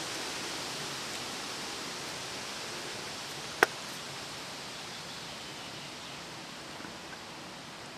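Steady outdoor background hiss, with one sharp click a little past halfway.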